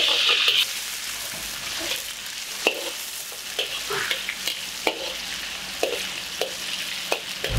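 Thinly sliced chicken sizzling in a hot wok over a gas flame while a ladle stirs it, with scattered sharp clicks of the ladle against the wok. The sizzle is loudest for the first half-second, then drops to a quieter frying hiss.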